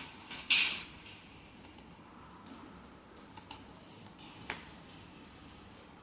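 Scattered clicks and taps of a computer keyboard and mouse: a louder clatter about half a second in, then a few single sharp clicks spread over the rest.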